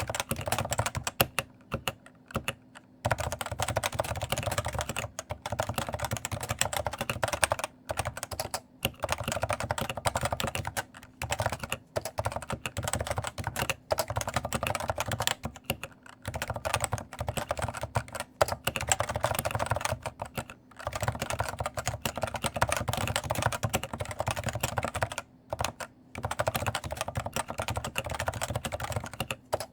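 Steady fast typing on a stock Cooler Master NovaTouch TKL, a Topre electrostatic capacitive (non-contact) keyboard: quick keystrokes with the clattery rattle of its light keycaps, broken by a few short pauses, the longest about two seconds in.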